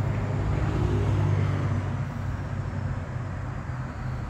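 Diesel freight locomotive's engine throttled down, a steady low drone as the train rolls slowly toward the camera, easing off a little about two seconds in.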